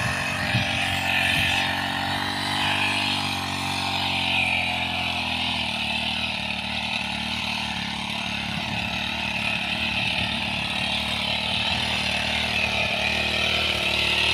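Small two-stroke engine of a backpack power sprayer running steadily at working speed, driving spray out through a pipe boom of nozzles.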